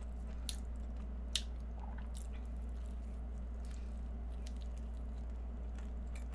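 Close-up eating sounds: biting into an egg tart's flaky pastry and chewing, with a few faint, crisp clicks scattered through. A steady low hum runs underneath.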